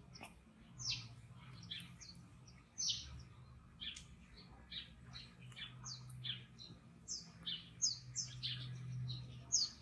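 Small birds chirping: a quick, irregular run of short, high, falling chirps over a faint low steady hum.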